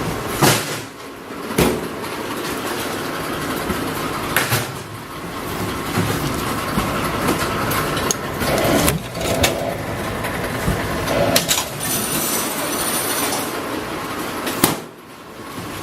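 Semi-automatic PP strapping machine running, its motor whirring steadily, with a sharp clunk every few seconds as it works through strapping cycles on the plastic band.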